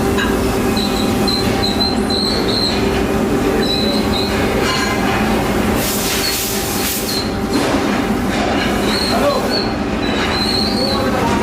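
Workshop machinery running with a steady hum and repeated short high-pitched squeaks, and a brief hiss about six seconds in.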